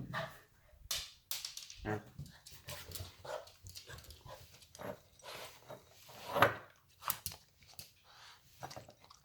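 Boston terrier moving about, her claws and paws tapping and scrabbling in scattered short clicks, with one louder short bark about six and a half seconds in.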